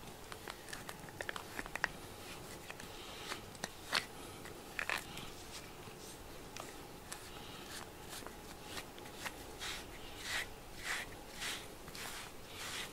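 Soft-bristled grooming brush being stroked through a cat's fur: scattered small clicks and scratches in the first half as the cat rubs and nibbles at the bristles, then regular scratchy brush strokes about twice a second in the second half.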